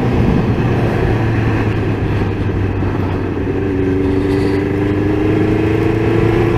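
1999 Suzuki GSX-R750's inline-four engine running at road speed, heard through a steady rush of riding wind. The engine note climbs slowly from about halfway through as the bike picks up speed.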